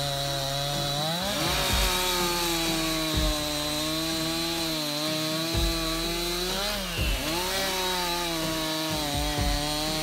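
Chainsaw cutting through a log held in a sawhorse. The engine runs at high speed, and its pitch dips and recovers about a second in and again near seven seconds as the chain bites into the wood.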